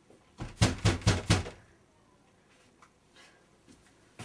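Knocking on a door: about five quick, loud knocks in a row within the first second and a half.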